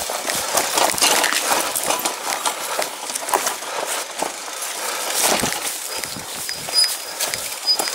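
Irregular crunching and rustling of movement through forest undergrowth, dense crackles with no steady rhythm, and a faint high peeping a few times near the end.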